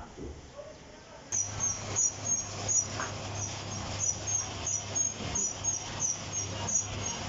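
A roll lamination machine starts up about a second in and runs with a steady low hum and a regular high squeak repeating about three times a second.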